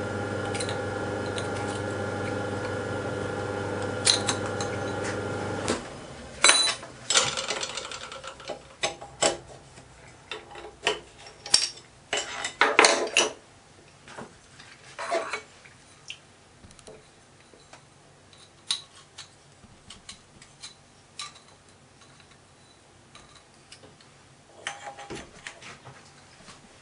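A steady machine hum stops abruptly about six seconds in. It is followed by scattered sharp metallic clinks and clanks as copper boiler parts and the lathe's four-jaw chuck are handled.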